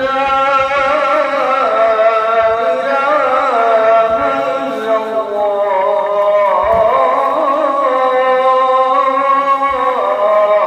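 Islamic devotional chanting: a voice sings a long melodic line, holding notes and turning slowly through ornamented pitch changes without a break.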